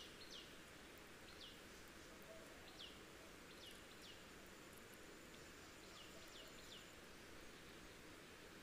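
Near silence with faint hiss, broken by a small bird's short, faint, falling chirps, single or two or three close together, every second or two.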